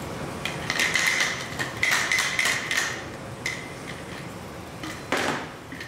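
Thin plastic water bottle crinkling and clicking as it is picked up and handled by hand: dense clusters of rapid crackles over the first few seconds, then a few separate clicks and one louder crackle near the end.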